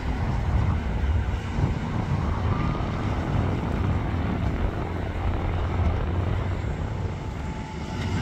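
Low, steady rumble of a passenger train rolling away down the line, mixed with wind buffeting the microphone.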